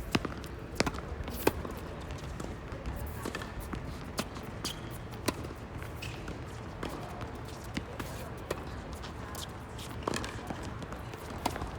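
Tennis ball being struck by racquets and bouncing on the court during a rally: sharp pops every second or so, the loudest in the first second and a half.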